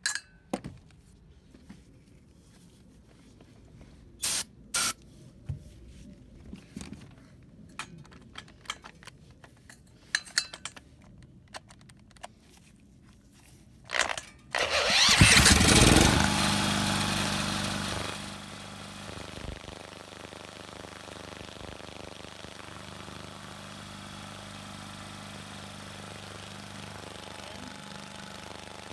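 Small portable-generator engine spun over with a cordless drill on its flywheel nut, with scattered short clicks and knocks, then catching about 15 seconds in. It runs loud for about three seconds and then settles to a steady, quieter run, running again with the faulty low-oil shutoff disconnected.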